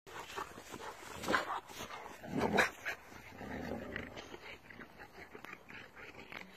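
A boxer and an American Bulldog vocalising as they play-fight, with two loud outbursts: one about a second in and another a little after two and a half seconds. Quieter dog noises follow.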